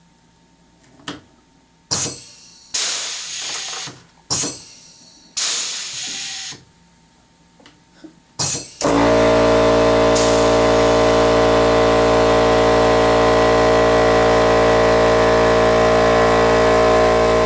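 Pneumatic air riveter worked several times, each stroke a short burst of hissing air, without setting the rivet because the air pressure is too low. About nine seconds in, a small air compressor's motor starts up and runs with a loud steady hum.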